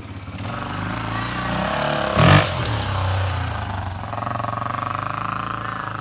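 Honda XR250 dirt bike's single-cylinder four-stroke engine running as the bike is ridden, building up over the first two seconds, then settling to a steadier, even putter. A brief loud burst comes about two seconds in.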